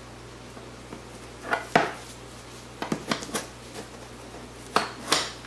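Metal parts clinking and knocking as a VESA mount adapter plate is fitted against a display's metal mounting bracket: a few sharp clanks in three small groups, the loudest about two seconds in.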